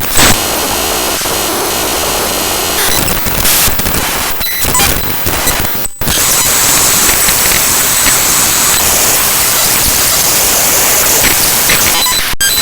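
Raw bytes of the Windows File Explorer program played back as audio by Binary Waterfall: loud, harsh digital noise and static laced with thin steady whistling tones. It cuts out for an instant about six seconds in, where the texture changes, and again briefly near the end.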